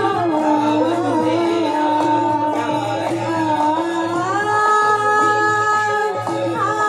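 Live devotional song: a woman singing long held, sliding notes over instrumental accompaniment.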